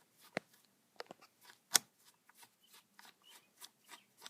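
A screwdriver clicking as it unscrews the screws on a Homelite chainsaw's primer-bulb cover. The sharp clicks come irregularly at first, with one louder click a little before the middle, then settle into a run of about three a second near the end.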